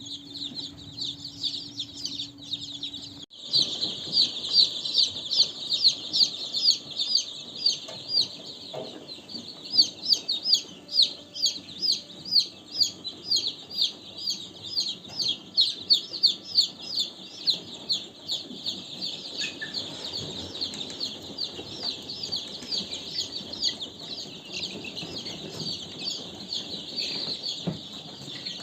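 Many young chicks peeping together: a dense, continuous stream of high, short, falling chirps. A steady low hum sits under them for the first three seconds and stops abruptly.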